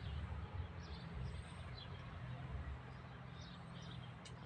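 Outdoor background sound: a steady low rumble with faint, scattered bird chirps.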